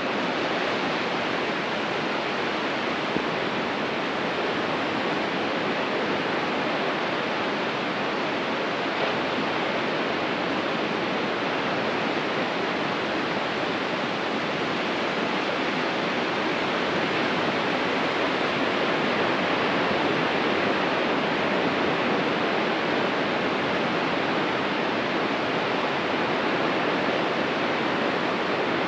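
Ocean surf on a beach: a steady, unbroken wash of breaking waves, swelling a little past the middle.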